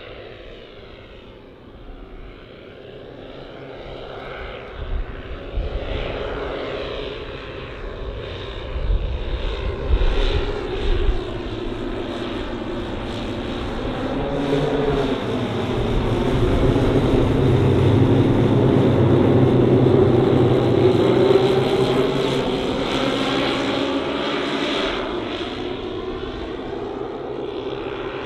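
The twelve 10 cc OS engines of a 1:10 scale Dornier Do X radio-controlled flying boat droning together as it flies by. The sound builds up as the model comes overhead, is loudest past the middle, then fades as it flies away. A few brief low rumbles come around ten seconds in.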